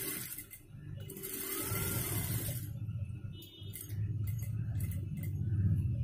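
Industrial single-needle lockstitch sewing machine stitching a neckline seam, its motor and needle running as a steady low hum with a rapid stitching texture, with a short rush of fabric rustling about a second in and light ticks later on.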